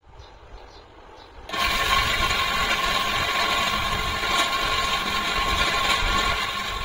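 Stand fan starting up suddenly about a second and a half in and running with a loud, steady rattling whine, the noise of worn motor bushes. It drops away just before the end.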